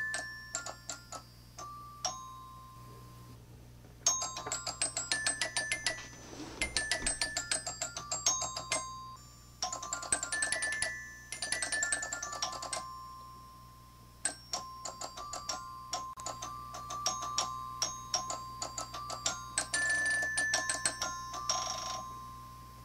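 Robotic xylophone playing a tune: homemade solenoids fire magnet slugs up into its metal bars, striking short ringing notes, with several stretches of rapid repeated strikes.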